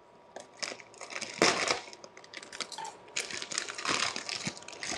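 Plastic bag of dry rigatoni being handled and tipped: the plastic crinkling and the hard pasta shifting inside, a run of irregular crackles that is loudest about one and a half seconds in.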